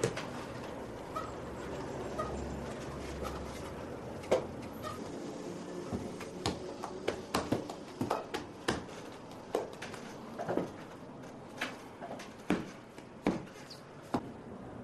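Hands slapping and patting rounds of flatbread dough on a wooden work table: a string of short sharp pats, a few at first, then coming two or three a second from about halfway through.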